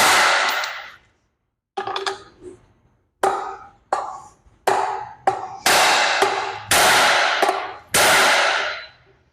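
Hammer blows driving a U-joint bearing cap out of a driveshaft yoke: about nine heavy strikes at uneven spacing, each ringing briefly, the last three the loudest.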